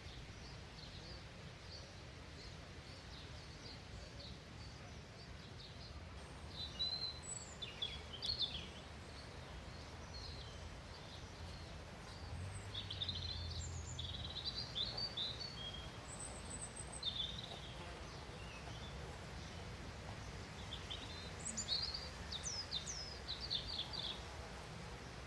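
Small songbirds chirping in short clusters of quick high calls, several times, over a steady low outdoor rumble.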